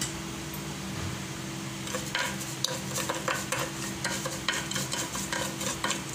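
Sugar in melted fat sizzling in a frying pan on a low flame as a spatula stirs and scrapes it around to melt it into caramel. The irregular crackles and scrapes start about two seconds in, over a steady low hum.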